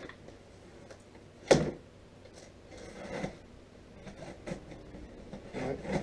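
Cardboard box being cut and pried open by hand: scattered scrapes and rustles of cardboard, with one sharp knock about one and a half seconds in.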